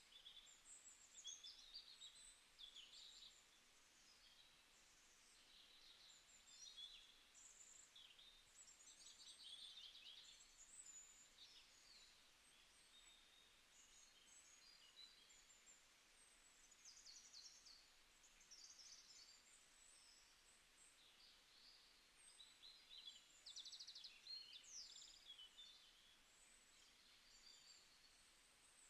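Faint chorus of birds: many overlapping high chirps, short whistled glides and quick trills, without pause.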